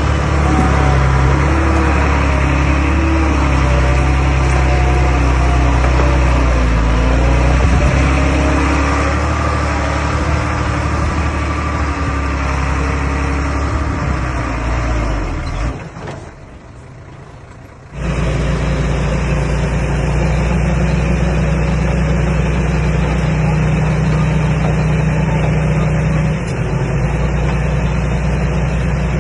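Komatsu D21A crawler bulldozer's diesel engine running while working, with wavering, shifting tones over the steady engine note in the first half. About halfway through the sound drops away for about two seconds, then the engine comes back running steadily.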